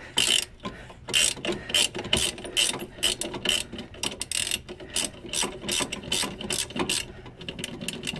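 Hand ratchet wrench worked back and forth in quick strokes, about three clicking bursts a second, loosening a rear shock nut by hand instead of with a breaker bar.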